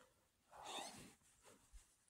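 Near silence, with one soft breath from a man, an exhale, about half a second in.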